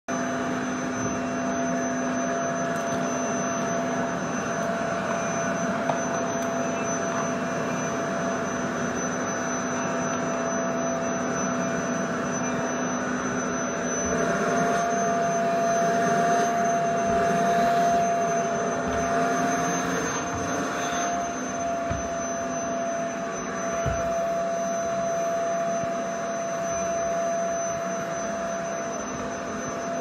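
Vacuum cleaner running steadily: a rushing airflow with a high steady whine. It grows a little louder for a few seconds around the middle, where the whine wavers slightly in pitch.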